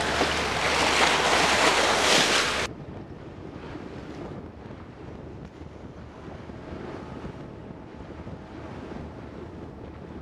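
Loud rushing and splashing of water from a fishing trawler's bow wave, cutting off suddenly about two and a half seconds in. After that come much quieter wind and waves.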